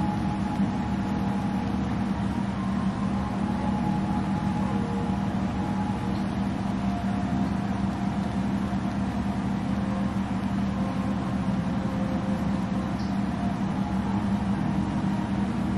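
Steady mechanical hum with an even hiss and a constant low drone, like a fan or heater motor running.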